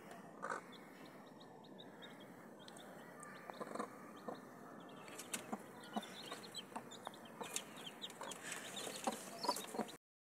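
A brood of young chicks peeping rapidly in many short high chirps, growing busier partway through, while the mother hen clucks among them; scattered sharp taps are mixed in. The sound cuts off abruptly near the end.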